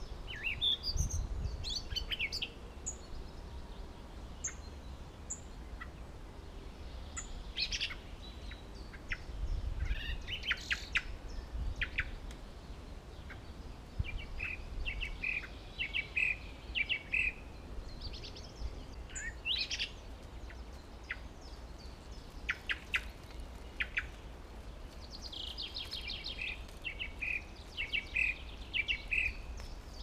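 Woodland songbirds singing: scattered short calls, and twice a longer song of quick notes falling step by step in pitch, around the middle and near the end. A low rumble runs underneath.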